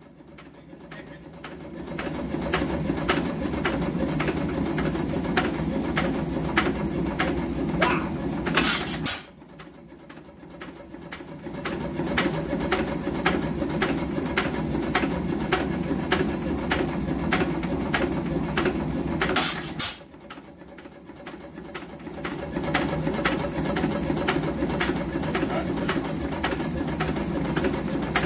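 A 1915 Majestic 5 hp hit-and-miss engine coasting on its flywheels with a steady run of regular mechanical clicking and a hum. It fires twice with a loud bang, about 9 and 20 seconds in, as its governor lets it take a charge.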